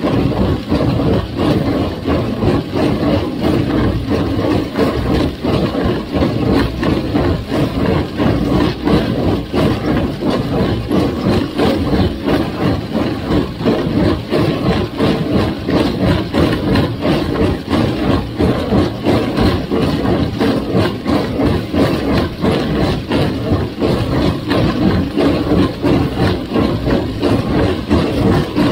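1958 Farmall 350 tractor's gasoline four-cylinder engine running steadily.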